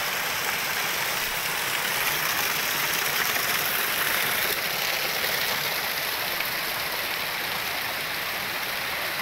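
Steady rushing of flowing water, a stream or river running continuously without change.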